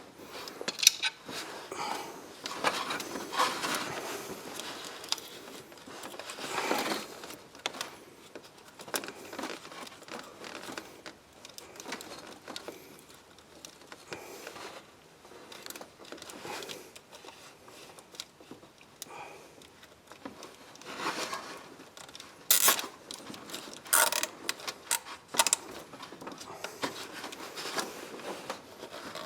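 Scattered light clicks, rattles and rustles of hand-work in an engine bay: plastic cable ties being fitted and pulled around ignition coil connectors whose locking tabs are broken. A run of sharper clicks comes about three-quarters of the way through.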